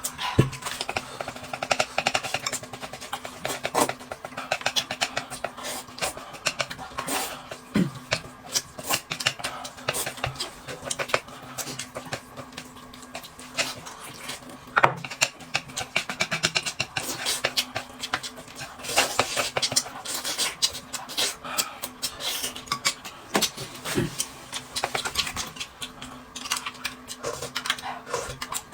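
People eating at a table: dense chewing and mouth noises, with frequent short clicks of utensils against dishes.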